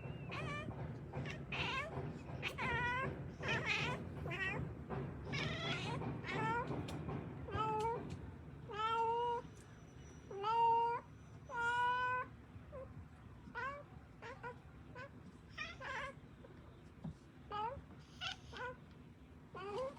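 Domestic cats meowing back and forth in a long run of short calls, with three longer, louder meows around the middle.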